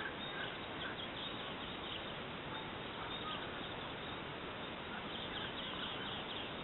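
Outdoor evening ambience: a steady, even background hiss with faint, scattered high bird chirps.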